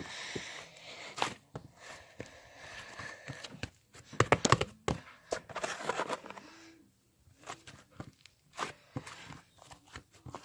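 Irregular taps and clicks with bouts of rustling, including a dense run of clicks about halfway through.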